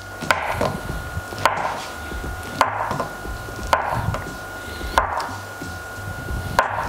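Kitchen knife dicing a block of feta cheese on a chopping board: six sharp knocks of the blade striking the board, about one a second.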